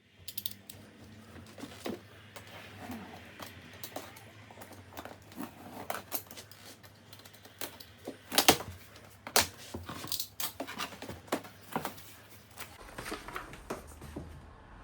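Irregular clicks, taps and knocks of things being handled, over a steady low hum.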